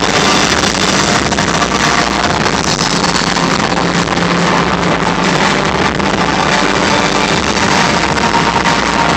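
Loud stadium concert sound overloading a phone's microphone: a steady, dense, distorted roar of amplified sound and crowd in which no clear tune stands out.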